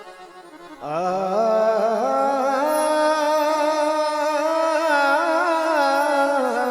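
A man singing a long wordless held note in a Marathi devotional bhajan. About a second in he slides up into the note, then sustains it with wavering ornaments.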